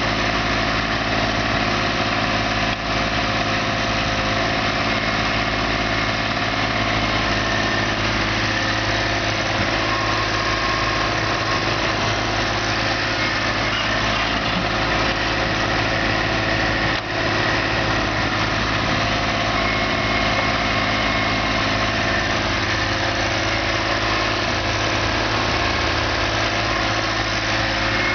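Diesel engine of construction machinery running steadily at an even speed, with two brief dips in loudness.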